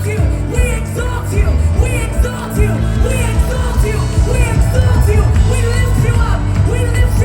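Live worship band music: held low notes and chords under a woman singing, her voice sliding between notes.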